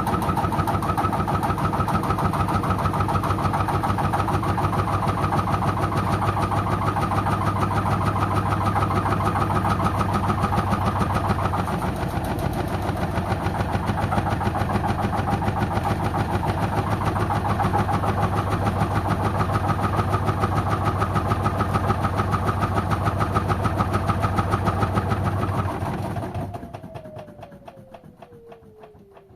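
LG washing machine spinning its drum at speed with a steady hum. About 26 seconds in the motor cuts out and the drum coasts down with a falling whine as the spin ends.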